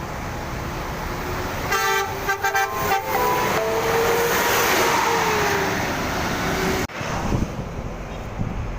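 Indonesian bus's telolet (basuri) musical air horn playing a quick run of short notes about two seconds in, then a long held note that cuts off abruptly about seven seconds in. Traffic and engine noise from the passing bus sit underneath.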